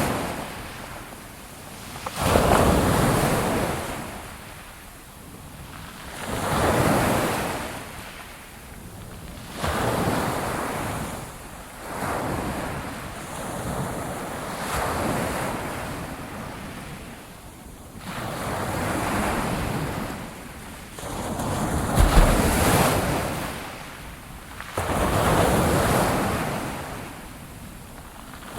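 Ocean waves breaking on a shore, one surge every three to four seconds, each swelling and washing back out. Several break with a sudden crash, the loudest about three-quarters of the way through.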